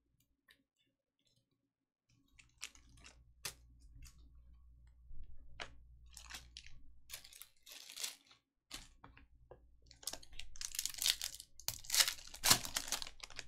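A trading card pack's foil wrapper being handled and torn open. Scattered small rustles and clicks build to a run of loud crinkling and tearing in the last few seconds.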